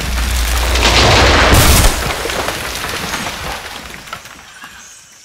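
Cartoon crash sound effect: a heavy body slamming down and a tree smashing, heard as a loud rumbling boom. It peaks about one and a half seconds in, then dies away with scattered small crackles.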